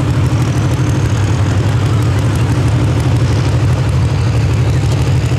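Super modified 4WD pulling truck engine running loud and steady at a constant pitch.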